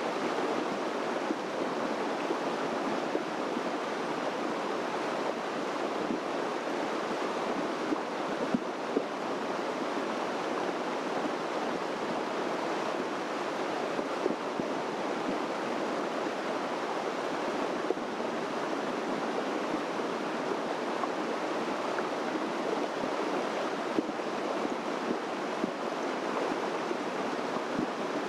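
Steady rushing of flowing water, like a mountain creek, an even, unbroken noise throughout.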